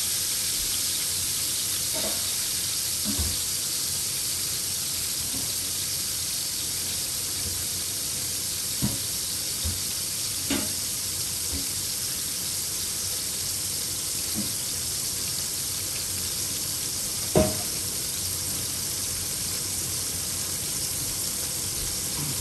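Sea bass fillets shallow-frying in hot oil in a frying pan: a steady sizzle with a few short pops and crackles scattered through it, one sharper pop about three-quarters of the way through.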